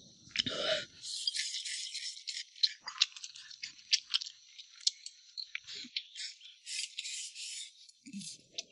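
Eating sounds: utensils clicking and scraping against a bowl in short rattling bursts, with sharp clicks between patches of scratchy rustle.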